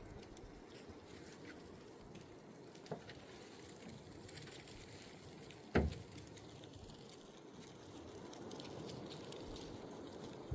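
Faint background noise broken by two short knocks about three seconds apart, the second louder.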